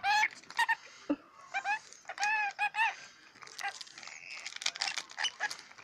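Scaly-breasted lorikeet calling: short rising-and-falling whistled notes, a quick run of them in the middle, mixed with a few sharp clicks.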